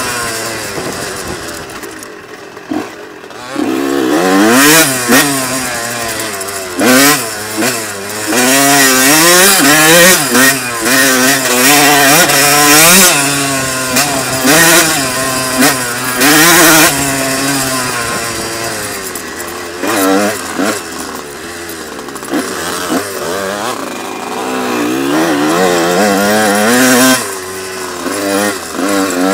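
Honda CR125 two-stroke dirt bike engine being ridden hard, its revs climbing and dropping again and again with each burst of throttle and gear change.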